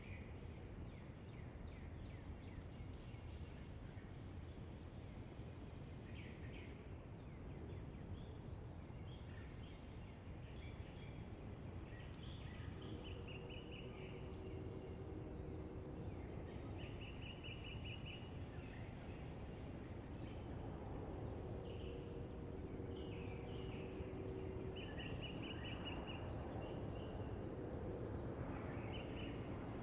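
Woodland ambience: small birds chirping, with several quick trills, over a steady low background rumble. A faint steady drone comes in twice midway.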